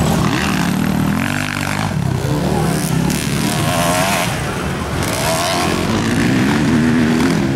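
Motocross bike engines revving hard, their pitch rising and falling again and again, with more than one bike heard at once at times.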